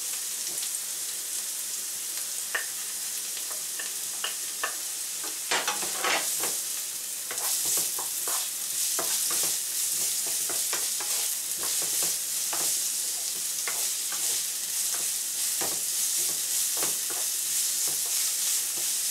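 Chopped onion, carrot, garlic and ginger sizzling in hot sunflower oil in a frying pan, with a wooden spatula scraping and knocking against the pan as it stirs. The sizzle grows louder about seven seconds in.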